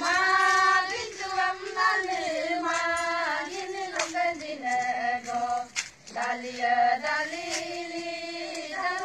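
A group of voices singing a Galo folk song together, holding long, steady notes with a short break partway through, and a few sharp hand claps.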